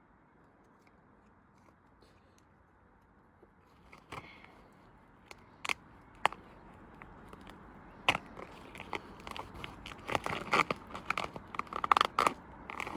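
A Pinnacle washing machine being run with a heavy lump of mud or stone loaded inside to wreck it, banging and rattling. The irregular knocks begin about four seconds in and grow louder and more frequent towards the end.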